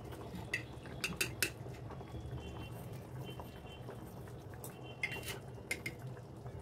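Light metallic clicks and taps of a spoon against containers as salt and sugar are spooned out and sprinkled into a pan of simmering curry. They come in a few short groups: about half a second in, around a second in, and again about five seconds in.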